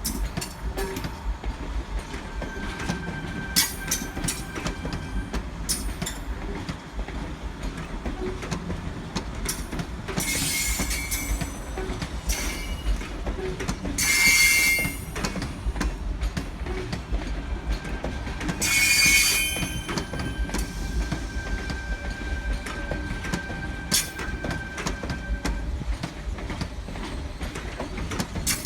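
Electric passenger train rolling on the rails, its wheels clicking over rail joints, with a low rumble throughout. High-pitched wheel squeal comes in three short bursts partway through, the loudest moments.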